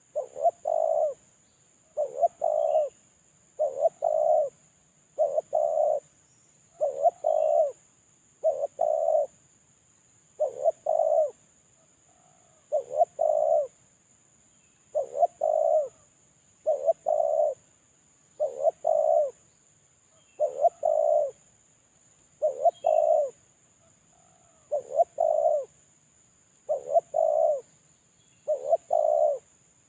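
Male spotted dove cooing its song as a lure call: about sixteen phrases, each a short note and then a longer coo, repeated roughly every two seconds.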